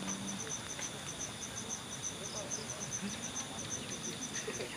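Crickets chirping at night: an even, rapid pulse of high chirps, about six or seven a second, over a steady high-pitched drone of insects.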